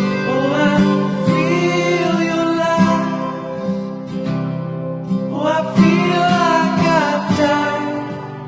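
Background song: strummed acoustic guitar with a voice singing two phrases over it.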